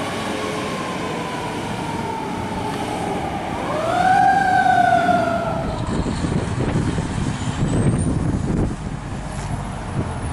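Fire engine siren in a slow wail: its pitch falls gradually, rises again about four seconds in and falls away. The siren fades out after about six seconds, leaving a low rumble.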